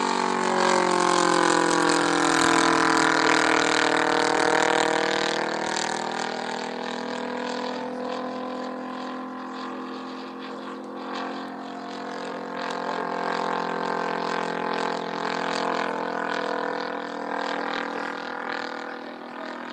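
Valach 120i-4T 120 cc inline-twin four-stroke petrol engine on straight pipes, driving a three-blade propeller on a large radio-controlled Hawker Typhoon in flight. The engine is loudest over the first few seconds, where its pitch bends as the plane passes, then runs steadily and somewhat quieter.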